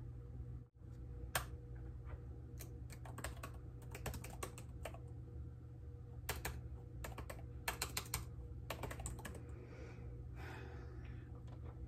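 Computer keyboard typing: irregular runs of quick key clicks, some in fast clusters, over a faint steady electrical hum.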